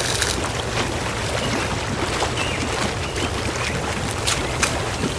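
Steady sea ambience: a continuous wash of waves, with a few faint clicks scattered through it.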